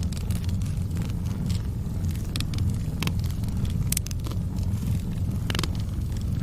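Wood fire burning in a fireplace: a steady low rumble with irregular crackles and pops, a few sharper snaps standing out.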